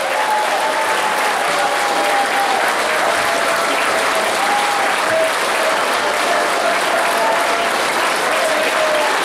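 Large crowd applauding steadily without a break.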